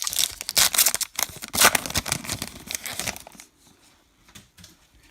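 Foil trading-card pack wrapper being torn open and crinkled, a dense crackling rustle that stops about three and a half seconds in, followed by faint handling rustles.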